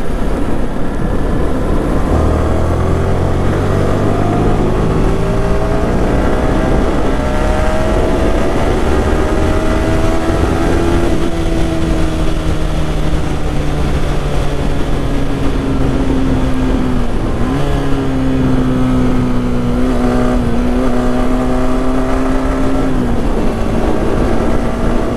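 Yamaha R15 V3's 155 cc single-cylinder engine pulled hard under acceleration, its note rising steadily as the bike climbs to about 100 km/h, dipping sharply about eleven seconds in, then holding high and steady. Heavy wind rush runs under it, picked up by a helmet-mounted mic.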